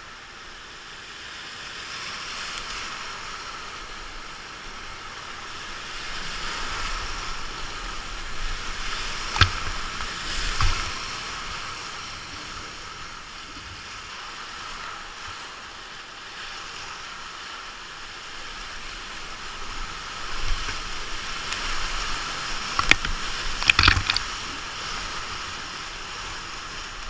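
Rushing whitewater of a river rapid heard from a kayak running it, swelling louder through the rougher stretches. Sharp knocks and splashes come twice about nine to eleven seconds in, and again in a quick cluster near the end.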